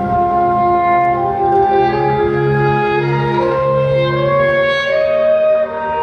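Orchestral music with long held notes that step to new pitches every second or so.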